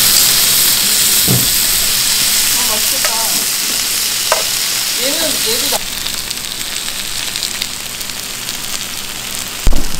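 Pork belly sizzling on a hot restaurant grill plate, a steady frying hiss that drops in level about six seconds in. Near the end comes a short thump as an earthenware pot of steamed egg is set down on the grill.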